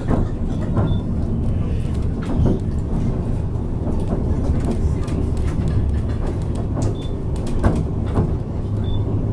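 White Pass railroad passenger train running: a steady low rumble with frequent short clicks and knocks from the wheels and cars.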